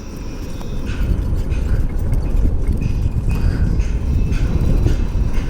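Wind buffeting a helmet-mounted microphone on a moving e-bike: a loud, uneven low rumble that grows louder about a second in.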